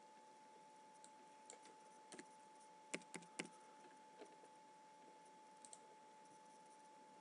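Faint computer keyboard keystrokes and mouse clicks, a few scattered taps over several seconds, with a faint steady tone underneath.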